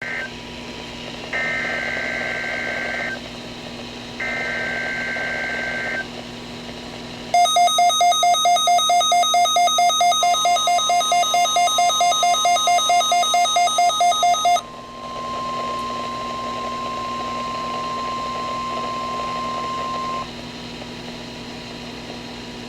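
NOAA Weather Radio test signal from a Midland WR-120 weather radio receiver. It opens with SAME digital header bursts, two long warbling data screeches with the tail of a third at the very start. The receiver's own alarm then beeps rapidly, about four beeps a second for about seven seconds, and the steady 1050 Hz warning alarm tone carries on alone after the beeping stops, cutting off about 20 seconds in.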